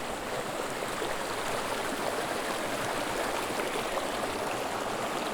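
Running water, a steady rush like a stream, growing slightly louder.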